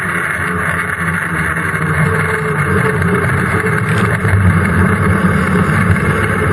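Small motorized watercraft under way: its engine running steadily, with the loud rush of spray and water along the hull.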